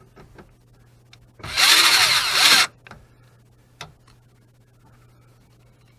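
Power drill spinning up once for about a second, about a second and a half in, driving a speaker mounting screw; a few light clicks and taps around it.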